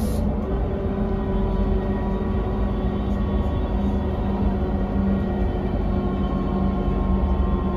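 Cabin sound of a 2001 Mercedes-Benz O405NH bus under way: a steady drone and road rumble, with several steady whining tones from its ZF automatic gearbox and hub-reduction rear axle.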